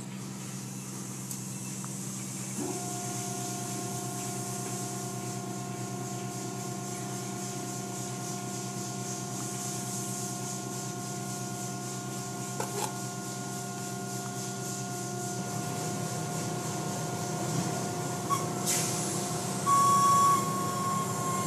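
Car wash machinery running: a steady motor hum, joined about three seconds in by a steady whine, over a constant hiss. A higher tone grows louder near the end.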